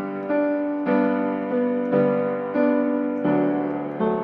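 Piano music: chords struck about every half second to second, each ringing and fading before the next.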